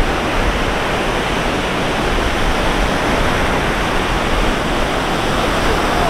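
Ocean surf breaking and washing up the beach: a steady rush of noise.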